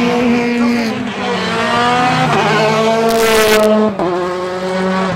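Rally car engine accelerating hard, its note climbing and dropping sharply at gear changes, about a second in and again about four seconds in. A short burst of hiss comes a little after three seconds in.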